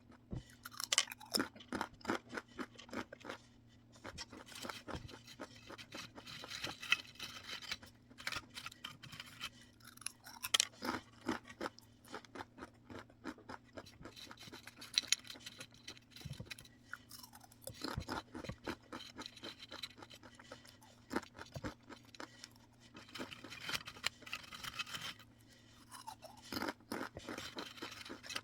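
Crunchy snack being bitten and chewed close to the microphone: repeated crisp crunches in clusters every few seconds, with quieter chewing between them.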